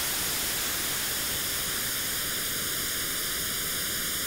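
White noise run through a Korg Kronos Stereo Dynamic Compressor (DNC1) and mixed about 50-50 with the dry signal, so the compressor's 0.6 ms lag comb-filters the hiss. A dip near 800 Hz and evenly spaced notches above it form and deepen about a second and a half in.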